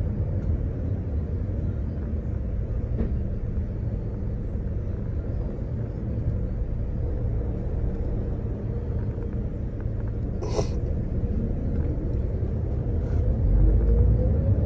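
Steady low rumble of a moving vehicle heard from inside it. A brief sharp sound comes about ten and a half seconds in, and near the end a whine rises in pitch as it speeds up.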